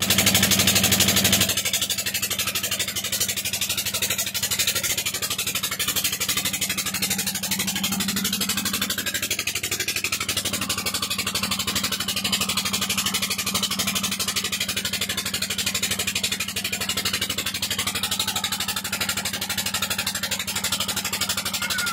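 Steady, even hum of a large wild honey bee colony clustered on an open comb. A louder hiss rides over the hum for the first second or so.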